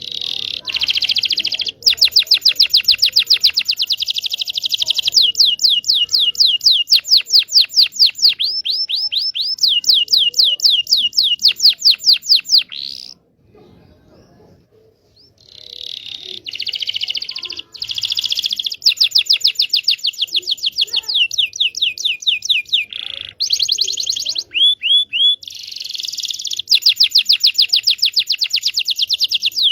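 Local Indonesian canary singing long phrases of fast repeated trills and quick downward-sweeping notes, in two long bouts with a pause of about two seconds a little before halfway. A lure song of the kind played to set silent canaries singing and to teach young canaries their song.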